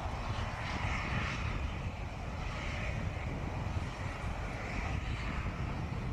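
Airbus A400M's four Europrop TP400-D6 turboprop engines and propellers droning steadily in flight, the sound slowly swelling and fading.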